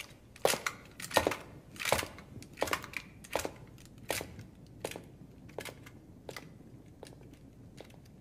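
Footsteps walking away, about one step every three-quarters of a second, growing fainter until they fade out near the end.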